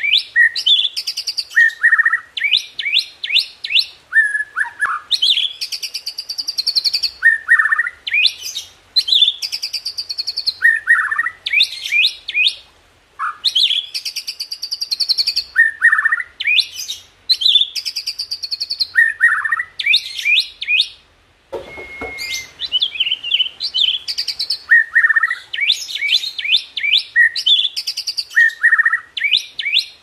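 Caged white-rumped shama (murai batu) singing without pause: each phrase opens with a low slurred whistle and runs into quick trills, chips and buzzy rattles, a new phrase about every two seconds. A single brief knock comes about two-thirds of the way through.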